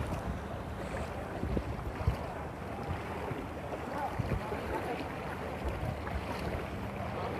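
Swollen river in flood rushing and churning steadily, a continuous roar of fast water, with a few low bumps on the microphone.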